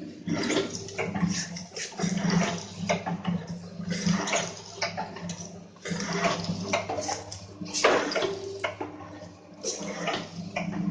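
Sugar-portion sachet packing machine running: a steady motor hum with repeated rushing hisses as granulated sugar drops from the rotary dosing tray into the paper sachets, about one every second or two.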